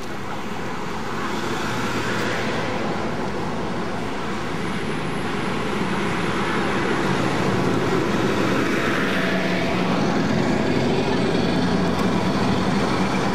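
City street traffic: vehicles passing on the road. The noise swells about six seconds in as a heavier engine hum comes up and holds through the rest.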